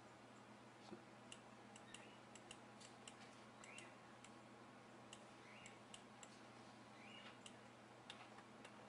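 Faint, irregular clicking of computer controls as a document is scrolled page by page, over a low steady hum.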